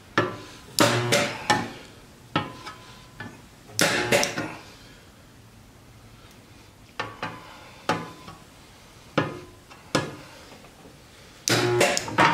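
Lenco spot welder firing a series of spot welds on overlapping sheet steel. About ten sharp cracks come with irregular pauses of a second or more as the copper electrode tips are moved along the seam, some with a brief electrical hum.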